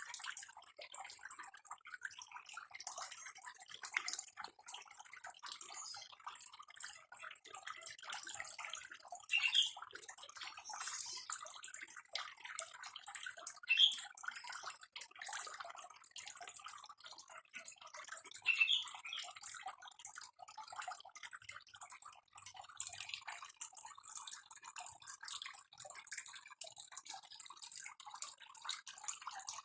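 Water trickling and dripping in a steady crackly patter, with three brief louder drips or splashes about ten, fourteen and nineteen seconds in.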